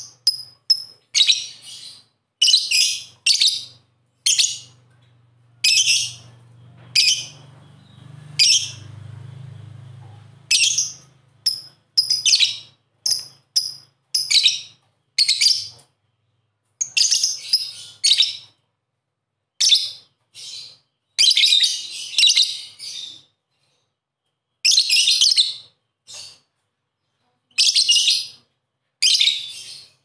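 Lovebird giving repeated shrill chirps, short sharp calls coming in irregular clusters with brief gaps between them.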